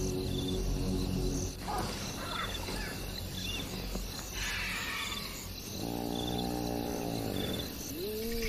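Crickets chirping, then wild animal calls: a long, low, steady call with many overtones a little past the middle, and arching calls that rise and fall near the end.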